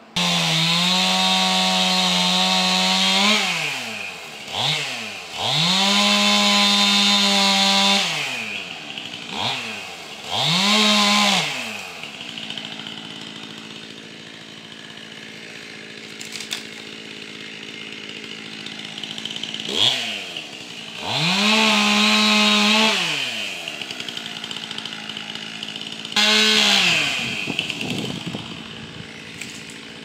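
Two-stroke chainsaw revved to full throttle in about five bursts of one to three seconds each, with a couple of short blips, its pitch climbing and falling back to a lower idle between them. The longest stretch of idling comes about halfway through.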